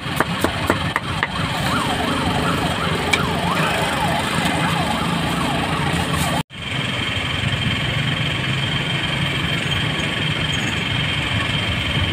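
Busy street ambience with vehicle engines running: sharp clicks and chirpy gliding sounds in the first half, and a steady low hum with a high steady whine after a brief dropout about halfway.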